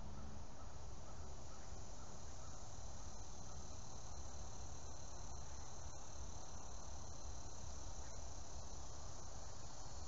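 Steady high-pitched chorus of insects, an unbroken shrill, over a low steady rumble.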